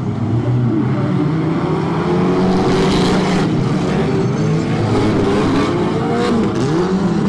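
Several stock cars' engines racing together, their pitches rising and falling as they accelerate and lift off, with a brief rush of noise about three seconds in.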